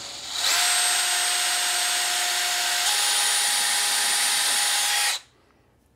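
Cordless DeWalt drill/driver running steadily for about four and a half seconds as it drives a screw. Its motor whine steps up in pitch about three seconds in, then stops suddenly.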